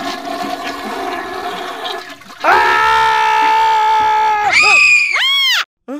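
A man's loud, long, drawn-out wail held at a high pitch, breaking off near the end into a few quick rising-and-falling cries before stopping abruptly. Before the wail there is a noisier rushing stretch.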